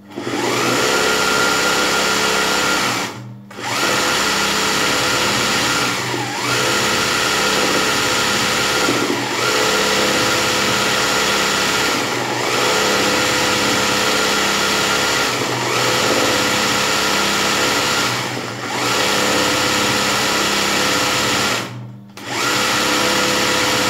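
Sewing machine stitching satin-stitch embroidery, running steadily with a constant whine in stretches of about three seconds, each broken by a brief slowdown or pause; it stops fully twice, about three seconds in and near the end.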